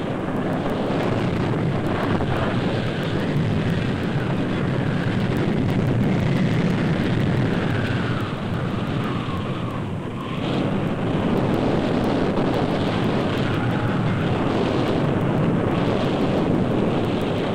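Tornado roar: a loud, steady rushing of wind, heaviest in the low end. It eases briefly a little past halfway, then builds again.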